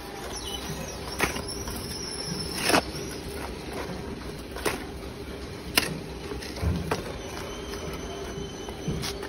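A steel shovel scraping and knocking as it scoops mortar off a concrete slab, and hollow clay bricks clacking as they are picked up from a pile. About half a dozen short, sharp knocks and scrapes stand out over a steady low hum.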